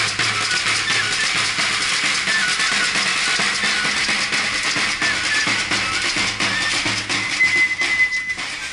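Traditional pipe-and-drum dance music: a high flute melody steps between notes over steady drumming, with a held high note near the end.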